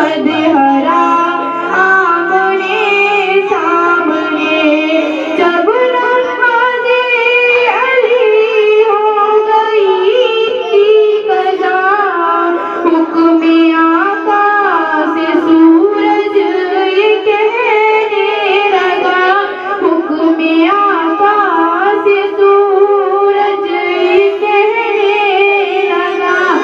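A female voice singing an Urdu naat, a devotional poem in praise of the Prophet Muhammad, in one continuous melody full of gliding, ornamented turns.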